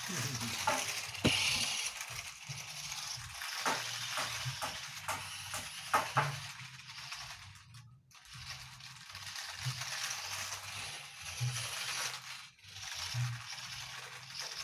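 Toy 1:18-scale remote-control off-road car running: a hissing whir with plastic rattling and a string of sharp knocks, most of them between about 4 and 6 seconds in.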